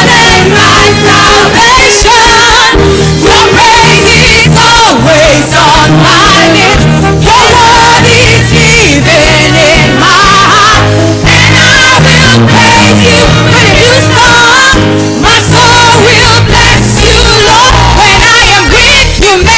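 Live gospel worship song: a woman sings the lead into a microphone over instrumental backing, with the congregation singing along.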